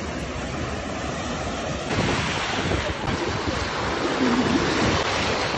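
Small waves washing and splashing in shallow surf, with wind buffeting the microphone. The surf grows louder about two seconds in.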